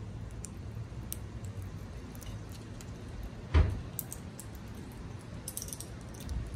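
Amazon parrots pecking at food in a coconut-shell bowl: faint scattered clicks over a low steady rumble, with one thump about three and a half seconds in.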